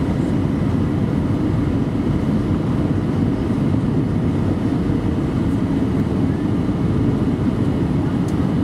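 Steady cabin rumble of an Airbus A319-112 airliner in flight, heard from a window seat over the wing, heaviest in the low end.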